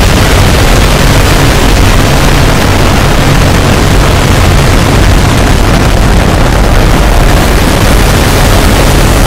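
Loud, harsh, distorted noise that fills the whole range evenly, with a steady low bass drone underneath.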